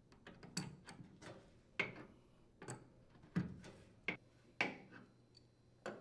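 Adjustable wrench clicking and knocking against a dryer's metal leveling legs as they are screwed into the cabinet, in irregular sharp ticks about one or two a second.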